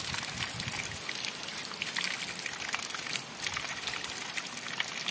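Fresh water running steadily from the end of a small plastic pipe and splashing onto stones.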